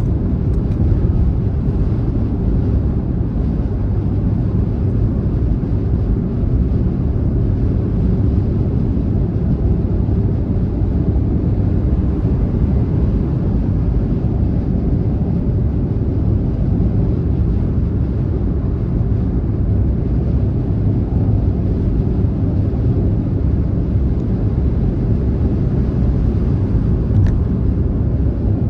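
Car driving on a motorway: a steady, unchanging low rumble of road and engine noise.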